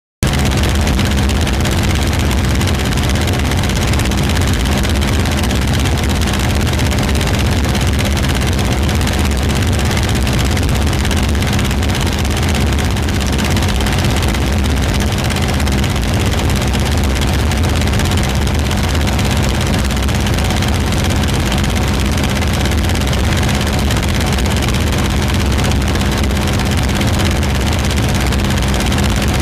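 Steady, loud drone of an aircraft's engine and rushing air, heard from aboard the aircraft in level flight, with a constant low hum underneath.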